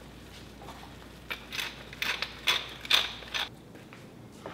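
A spatula scraping across a frying pan through thick, creamy risotto, in a quick run of about seven scrapes.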